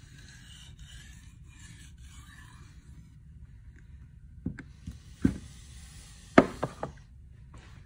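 Steel kitchen knife edge stroked across a whetstone in finish sharpening: a few gritty, hissing strokes with short breaks between them. Several seconds later, a handful of sharp clicks with short ringing follow close together.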